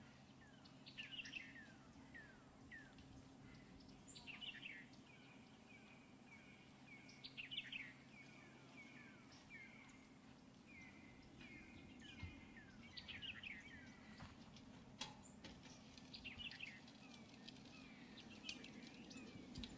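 Faint birdsong: repeated short chirps that sweep downward in pitch, with a thin steady whistle held for several seconds in the middle, over a low background hum.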